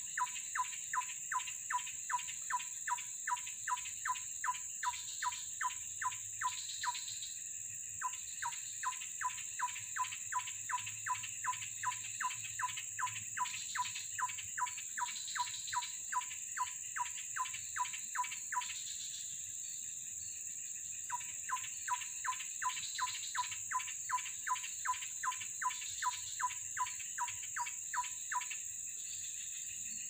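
Steady high-pitched insect drone, with a short animal call repeated about three times a second in long runs that pause twice.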